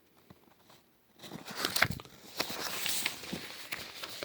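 Sheets of paper rustling and crinkling as they are handled, with small clicks, starting about a second in.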